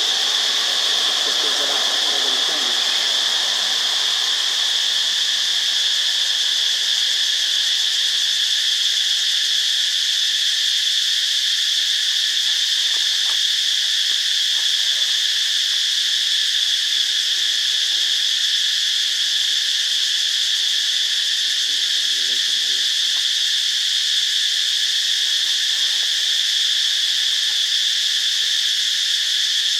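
Insect chorus: a steady, loud, high-pitched drone that goes on without a break.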